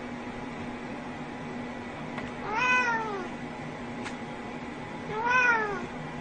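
Domestic cat meowing twice, two drawn-out calls that rise and then fall in pitch, about two and a half seconds apart, over a steady low hum.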